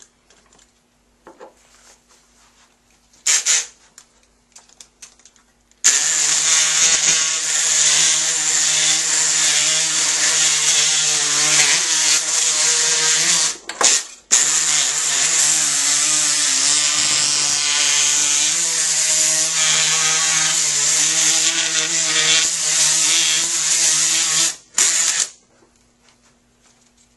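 Powered oscillating surgical bone saw cutting through a synthetic femur model, making the first distal femoral cut through a cutting guide. It starts about six seconds in, runs steadily with a short break near the middle, and stops a couple of seconds before the end.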